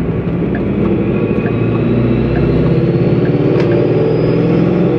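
Paxton-supercharged Ford Mustang GT's Coyote V8 running as the car drives, heard from inside the cabin, getting a little louder about a second in.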